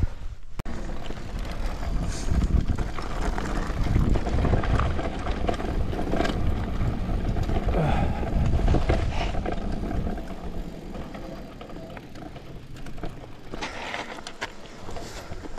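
Mountain bike rolling fast down a rough grassy and rocky trail, heard from the handlebar: tyres on the ground and the bike rattling and knocking over bumps, under a steady rumble of wind on the microphone. The rattling eases a little after about ten seconds.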